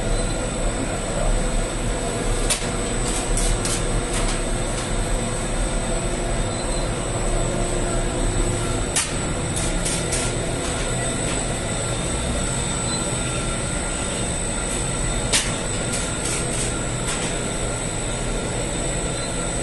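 Bakery dough-processing machinery running steadily: a continuous motor hum with a few steady tones. Three clusters of sharp clicks or clacks come about six seconds apart, as the machine cycles.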